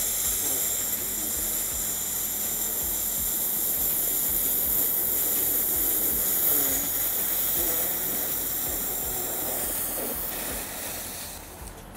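One long, slow inhalation hissing steadily for about eleven seconds and fading out near the end: a full yogic (three-part) breath drawn in to fill the belly, then the midsection and then the chest.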